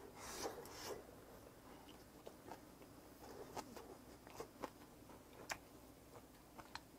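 Faint close-up mouth sounds of a man chewing a mouthful of grilled pork belly. A short noisy bite comes in the first second, then scattered small wet clicks as he chews.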